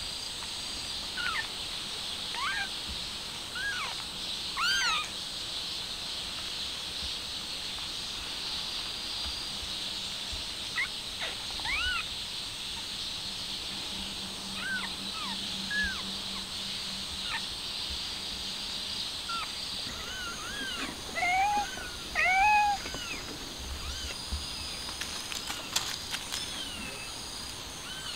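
Newborn kittens mewing: many short, high-pitched mews scattered at irregular intervals, with a louder, lower pair of mews a little past two-thirds of the way through, over a steady high hiss.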